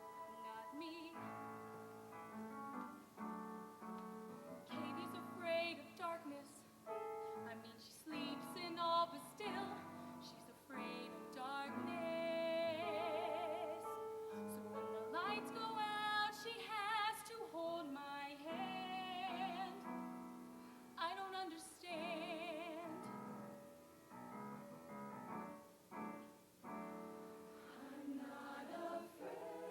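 Show choir singing with piano accompaniment: sustained notes with vibrato over moving chords, with a solo voice standing out in places.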